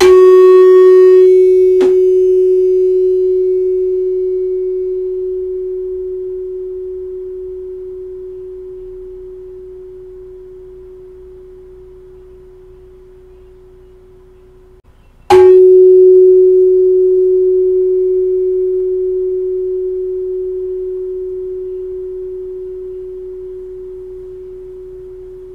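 Tuning fork on a wooden resonance box, wound with enamel wire, struck twice with a rubber mallet about fifteen seconds apart. Each strike gives a brief bright metallic clang that settles into one pure steady tone and slowly dies away, with a light click about two seconds in. The added wire makes it ring about 3 Hz lower than an unwound fork of the same size, slightly lower in pitch to the ear.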